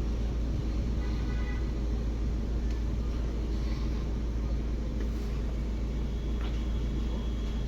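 Maruti Swift Dzire engine idling with a steady low hum, with a few faint ticks above it.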